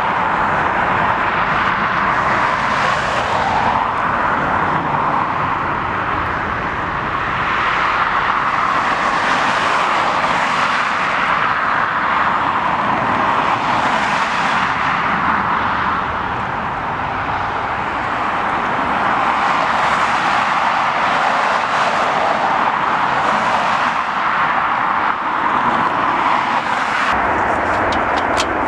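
Steady, loud rushing engine noise, swelling and easing every few seconds.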